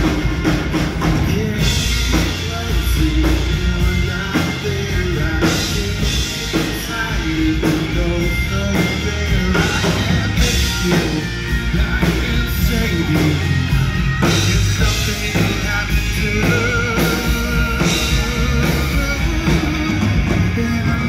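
Live rock band playing, with a steady drum-kit beat, electric guitar and a male lead vocal singing over it.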